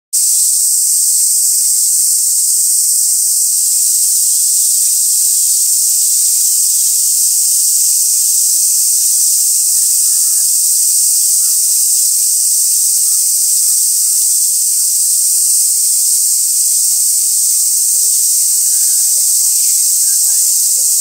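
Summer cicada chorus: a loud, steady, high-pitched hiss that never lets up, with faint voices underneath.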